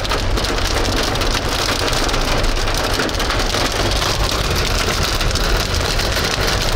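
Hail and heavy rain pelting a car's roof and windshield, heard from inside the cabin as a dense, loud, steady rattle of countless small hits over a low road rumble.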